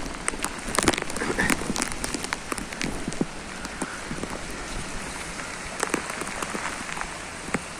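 Heavy rain pouring steadily, with large drops striking a nearby surface in sharp irregular taps that come thickest about a second in and again around six seconds in.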